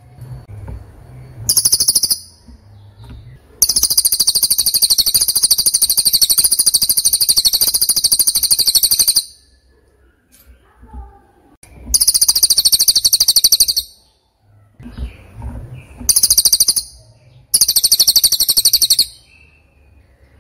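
A bird singing rapid, high trills in several bursts, the longest lasting about five seconds, with faint low thumps in the pauses.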